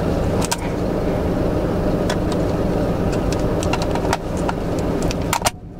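Truck engine idling steadily, heard from inside the cab, with scattered clicks and taps as a plug is pushed into a stiff inverter socket. The sound cuts out abruptly near the end.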